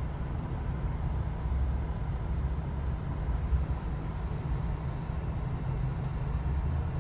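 Distant aerobatic propeller plane's engine droning steadily, heard as a low, even rumble.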